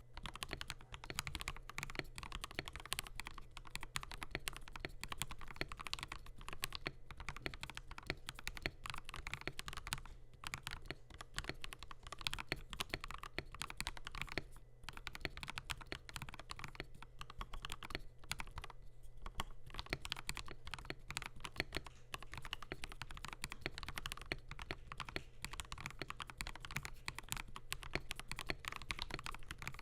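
Steady, fast typing on a Kemove K87 mechanical keyboard with lubed, filmed Gateron linear switches, a stainless steel plate and PBT keycaps. The key presses come as a dense run of soft clacks, with a few brief pauses.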